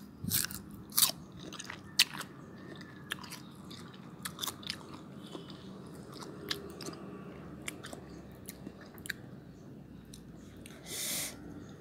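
Crisp unripe young mango being bitten and chewed close to the microphone: a few loud crunching bites in the first two seconds, then softer chewing clicks, with a short hiss near the end.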